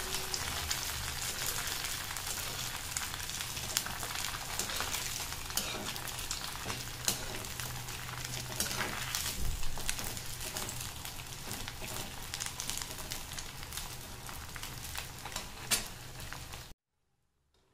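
Pieces of boiled wheat-dough batti deep-frying in hot ghee in a kadhai: a steady crackling sizzle with many sharp pops. It cuts off suddenly near the end.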